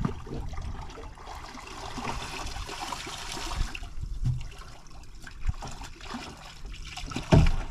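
Water splashing and trickling at the side of a small boat as a hooked conger eel is hauled up to the surface, with a few dull knocks, the loudest near the end.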